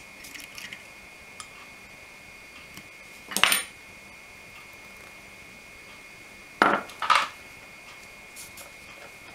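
Small hand tools or parts being handled and set down on a hard workbench: faint clicks at the start, a louder clatter about three and a half seconds in, and two more clatters in quick succession about seven seconds in.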